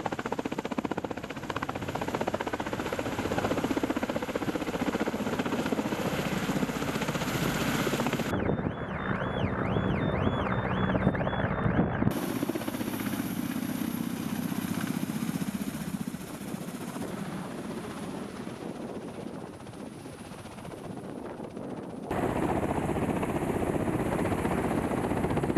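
Ka-52 coaxial-rotor attack helicopters running on the ground and flying past, giving steady rotor and turbine noise. The sound changes abruptly three times as the takes are cut together, and the middle stretch adds a wavering high whine.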